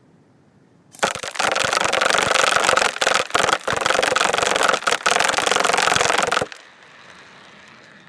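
Kalashnikov AK-47 electric airsoft rifle firing on full auto: a fast continuous rattle in long bursts, broken by a few short pauses. It starts about a second in and stops about a second and a half before the end.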